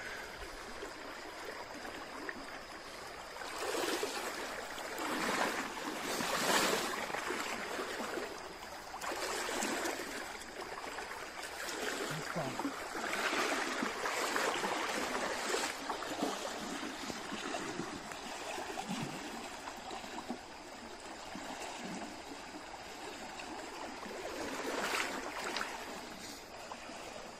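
Shallow stream running over a stony bed, a steady rush of water that swells and fades every few seconds.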